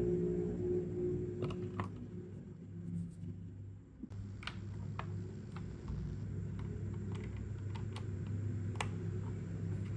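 Keys of a JEDEL KL150 mechanical keyboard being pressed one at a time, scattered single clicks at an uneven pace over a steady low hum.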